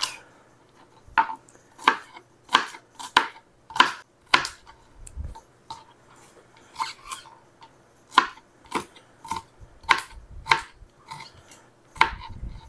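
Chef's knife dicing crisp, fresh green bell peppers on a cutting board: separate sharp knife taps on the board, irregular at about one or two a second, with a short pause about halfway through.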